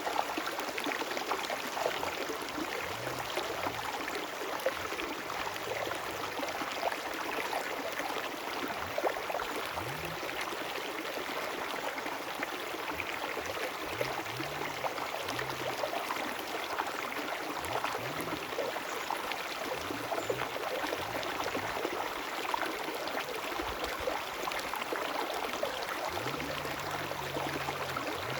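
River water flowing and babbling steadily, a dense continuous rush full of small splashes and trickles.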